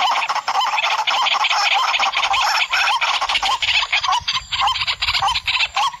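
White-breasted waterhen (kurowak) calls: a dense, harsh, repeated croaking chorus with short wavering notes about twice a second, as played for a lure call. A low rumble joins about two seconds in.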